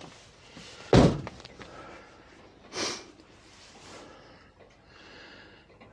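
A single heavy knock about a second in, then a short breathy sniff near three seconds.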